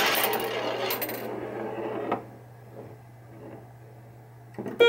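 Bally Fireball Home Edition pinball machine in play: a rolling, rattling clatter that fades out about two seconds in, leaving the machine's steady low hum, then a few sharp clicks and a short pitched tone near the end.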